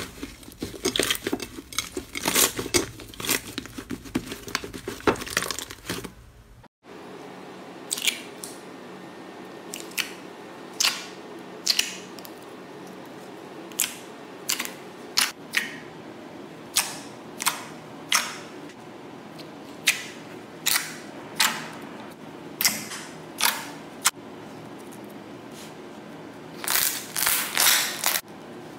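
Slime being squished and poked by hand, crackling and popping: a dense run of clicks, then after a cut, single crackling pops about once a second over a steady background hiss, with a quick run of pops near the end.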